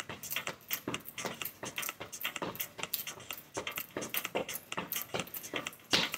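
Sneakered feet striking a tile floor in quick succession, about three footfalls a second, from jogging in place with heel kicks. One harder landing comes near the end.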